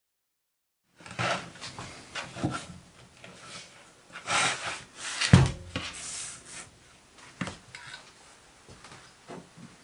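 Handling noises starting about a second in: rubbing and scattered knocks as the model steam engine's mounting board is moved about on a workbench, with one heavier knock a little past the middle.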